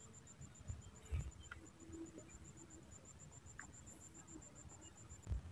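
Insect trilling faintly: a fast, steady train of high pulses, about eight a second, that stops shortly before the end. Faint low thumps sound now and then beneath it.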